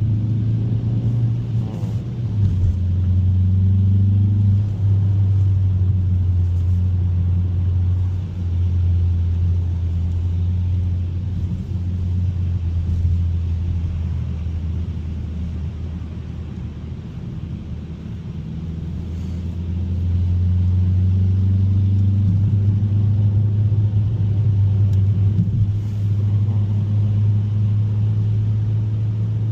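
2021 Mazda 3 Turbo's 2.5-litre turbocharged four-cylinder droning low under way, with steady road noise. The drone eases off through the middle and swells again about twenty seconds in.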